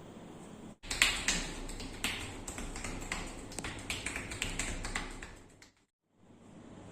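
Rapid, irregular hand taps and pats on the body during a massage. The run of sharp taps starts abruptly about a second in and dies away near the end, loudest at its start.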